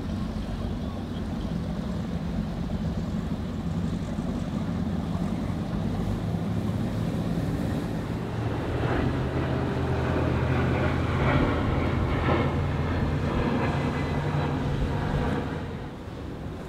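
Cigarette 38 Top Gun powerboat's engines running, growing louder past the middle, then falling away shortly before the end. Wind buffets the microphone and waves wash beneath.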